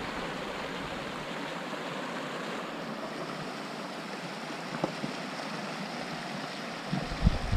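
Small mountain creek running steadily over rocks and a little riffle beneath a footbridge. Near the end, wind starts buffeting the microphone with low rumbles.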